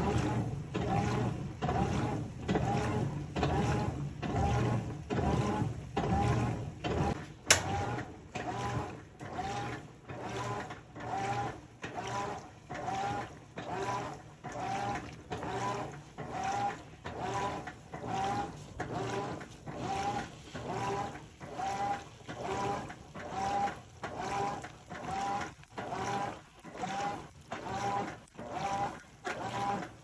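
Top-loading washing machine agitating a load in sudsy water: the centre agitator swings back and forth in even, rhythmic strokes, about three every two seconds, each a motor whir with a swish of water. One sharp click stands out about seven seconds in.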